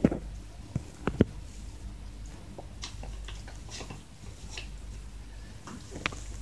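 Plastic bags crinkling and crackling under a cat as it grooms and shifts on them. Sharp crinkles come at the start and about a second in, softer rustling follows, and there is one more crackle near the end.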